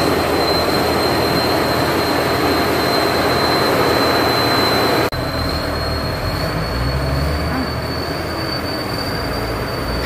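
Turbocharged diesel engine of a Sit Charoen Kan Chang tracked combine harvester running hard, with a steady high turbo whistle over the engine noise. The sound cuts off briefly about halfway and resumes a little quieter, the whistle slightly higher, as the crawler machine drives off.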